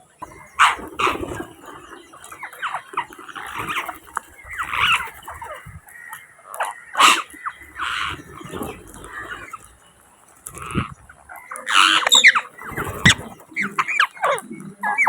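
Rose-ringed parakeets (Indian ringnecks) calling: many short, harsh squawks and chatters in irregular runs, growing denser and louder near the end.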